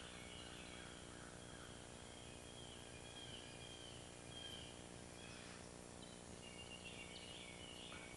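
Faint birdsong: a songbird singing high warbling phrases, pausing after about four seconds and singing again near the end, over a steady low hiss and hum.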